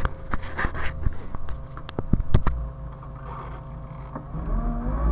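Hyundai excavator's diesel engine running low under a run of sharp clicks and knocks, then revving up with a rising whine near the end.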